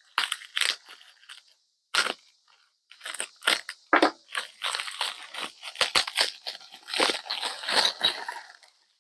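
Bubble wrap packaging being pulled open and torn by hand: irregular crinkling and crackling with short pauses, busiest in the second half.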